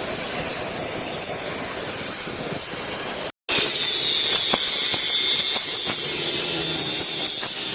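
Stick-welding arc crackling and hissing steadily. It breaks off briefly a little over three seconds in, then starts again louder.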